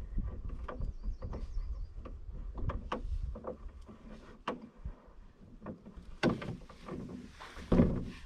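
Irregular hollow knocks and clatter from a person crouched in a canoe resting on the ground, handling gear against the hull, with heavier thumps near the end as he gets up and stands in the canoe.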